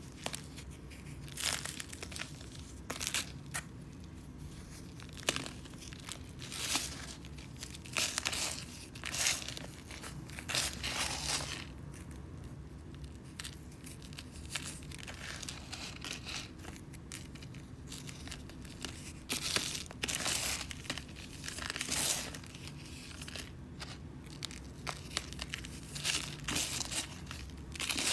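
Fingers crumbling and crushing a dry, crunchy sand sculpture coated in chalk powder, in irregular gritty crunches with loose sand trickling down.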